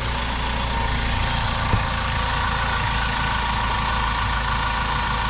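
2014 Ford Focus engine idling steadily and kind of loud, just started after an oil change with fresh oil in it. A single sharp click about two seconds in.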